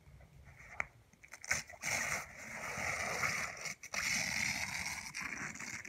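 Rustling and crinkling of a yurt's canvas window flap and a foil-faced reflective window panel being pulled down and handled, after a couple of light clicks.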